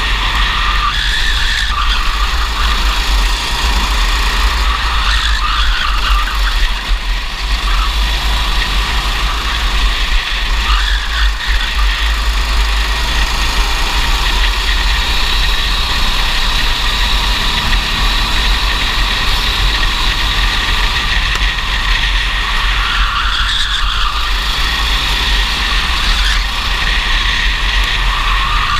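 Racing kart engine running under load, heard from the kart itself, with steady wind rumble on the onboard camera's microphone.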